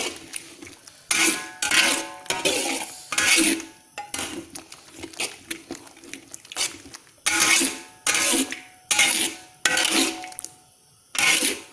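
Metal spatula scraping and clanking against a large metal wok while turning a big batch of fried rice, in strokes about once a second with a faint metallic ring, pausing briefly near the end.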